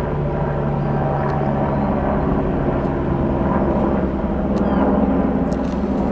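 Eurocopter AS355 F2 Twin Squirrel helicopter flying, a steady hum of its rotors and twin turbine engines that shifts slightly in pitch about halfway through.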